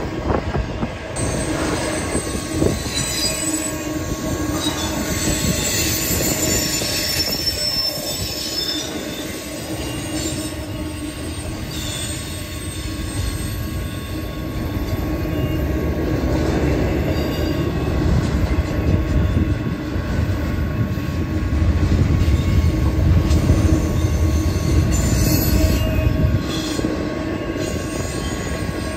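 Long intermodal freight train rolling past, its well cars loaded with double-stacked containers and highway trailers, with a steady rumble of wheels on rail. High wheel squeal rises in a few stretches, and the train gets louder in the second half.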